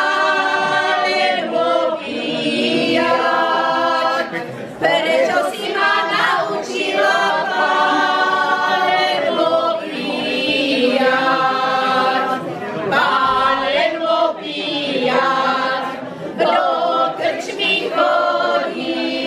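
A small group of people, women's voices leading, singing a Slovak folk song together without accompaniment, in phrases of long held notes with short breaks between them.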